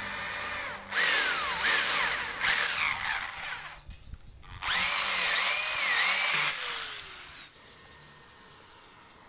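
Handheld electric drill boring through a metal pipe clamped in a vise. It runs in two stretches of about two to three seconds with a short pause between, the cutting giving a high whine that wavers up and down. It dies away about seven seconds in.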